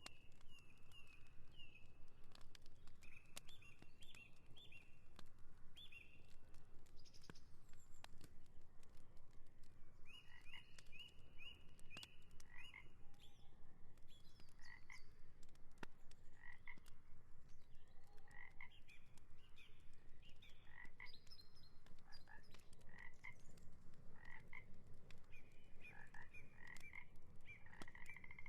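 Frogs croaking by a lake, mixed with birds calling in short repeated chirps.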